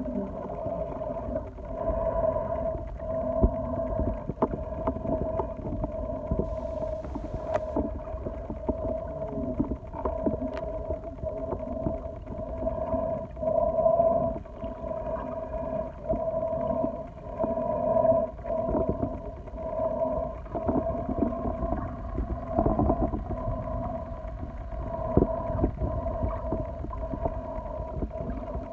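Underwater sound picked up by a phone held beneath the surface: muffled water noise with a steady hum, swelling and fading every couple of seconds, and scattered sharp clicks and knocks.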